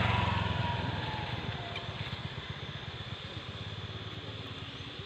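An engine passing by: loud at first and fading over the first two seconds, leaving a steady low pulsing hum.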